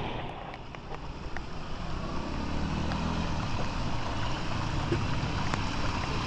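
A motor vehicle's engine running, a low hum that grows stronger about two seconds in, over a steady hiss.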